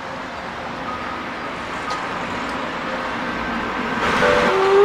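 A steam locomotive's whistle in the distance as the train approaches: faint short tones over steady background noise, then a louder whistle blast starting near the end.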